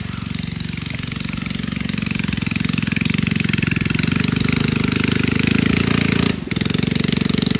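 Small mini bike engine running hard with a rapid, even putter of exhaust pulses, getting louder over the first few seconds, with a brief break about six seconds in.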